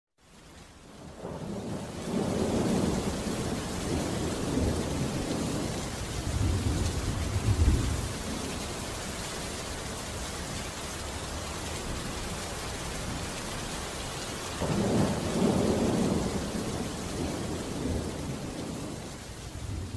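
Steady heavy rain with rolling thunder, fading in over the first couple of seconds; long low rumbles of thunder build from about two seconds in to about eight seconds, and another comes about fifteen seconds in.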